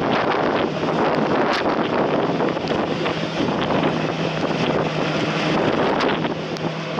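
Strong wind buffeting the microphone in heavy rain, a dense steady rushing with a few sharp ticks, over a steady low hum.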